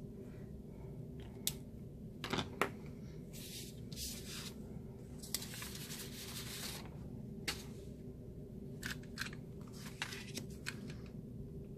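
Cardstock sheets being handled on a desk: paper sliding and rustling in two longer stretches, with scattered light clicks and taps.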